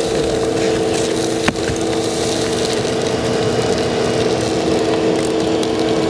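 Ridgid shop vacuum running steadily, a motor whine over air rushing through the hose as it sucks loose dirt up out of a deep post hole. One sharp click about one and a half seconds in.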